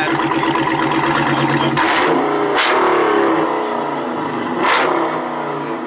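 Very loud car engine being revved through a loud exhaust: a steady fast-pulsing note, then rising and falling revs about two seconds in, with two sharp cracks, one about two and a half seconds in and one near the end.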